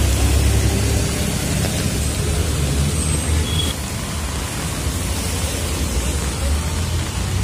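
Heavy rain falling on a wet street, a steady hiss with a deep rumble underneath.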